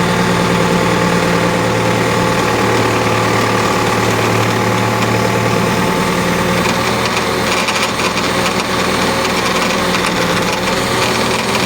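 Backhoe loader engine running steadily, with its hydraulic pump making an abnormal noise: the sign of a faulty hydraulic pump.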